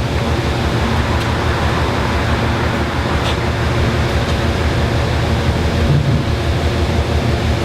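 Diesel locomotive engine running steadily, heard from inside the cab: a loud, even hum with a low, regular pulsing.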